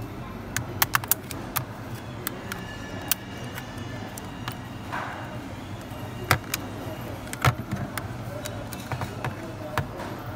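Plastic snap-clips of a PS5 DualSense controller's shell clicking and snapping as they are pried apart with a plastic pry tool: irregular sharp clicks, loudest about a second in and again about six and seven and a half seconds in. A steady low hum runs underneath.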